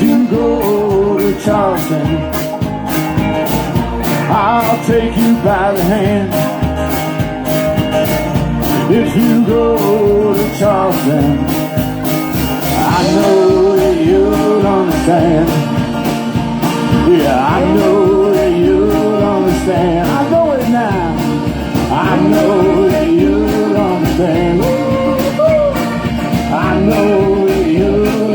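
A live band playing a song, with a steady drum beat under a wavering melody line.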